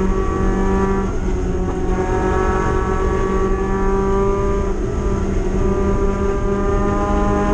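Spec MX-5 race car's four-cylinder engine running at high revs, heard from inside the cabin, its pitch slowly climbing.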